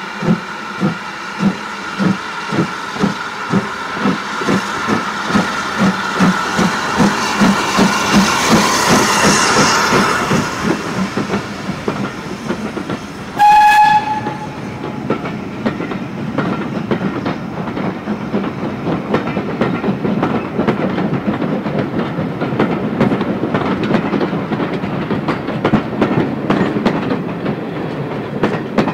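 BR Standard Class 4 2-6-4 tank locomotive No. 80104 pulling away with its train, its exhaust beating steadily and quickening slightly. About halfway through the whistle gives one short blast. The coaches then roll by with their wheels clicking over the rail joints, the sound fading near the end.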